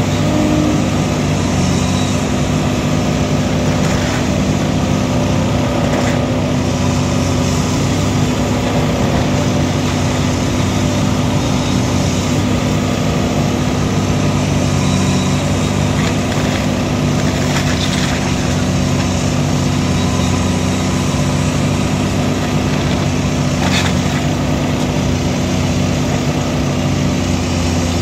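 Heavy demolition machine's engine running steadily, with a few sharp knocks spread through it.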